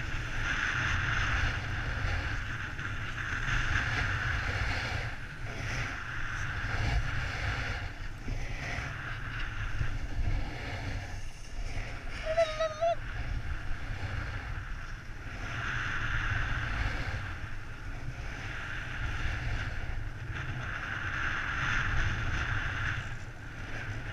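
Wind buffeting a helmet-mounted camera's microphone during a snowboard run, with the board scraping over packed snow in swells that rise and fall every few seconds as it turns.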